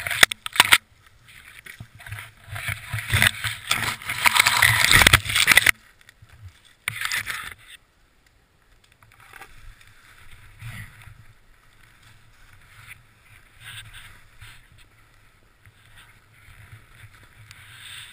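Snowboarder crashing through brittle tree branches into snow: loud rushing, scraping and crackling for about six seconds, then one more short loud rush about seven seconds in. After that, only quiet rustling of clothing, snow and board.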